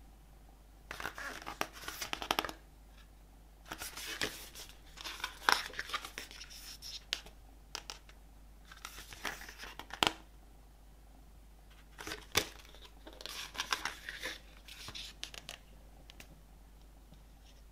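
Paper and plastic packaging of a CD album box set being handled, crinkling and rustling in several bursts of a second or two, with a couple of sharp clicks.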